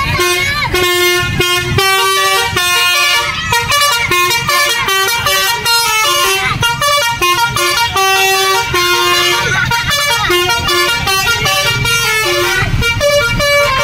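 Basuri telolet multi-tone bus horn playing a quick tune, several short notes a second stepping up and down in pitch, over the low rumble of the bus.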